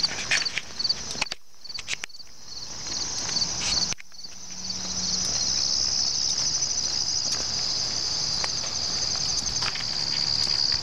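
Insects chirping, a high pulsing chirp about three times a second that gives way to a continuous high trill after about four seconds, with footsteps on asphalt.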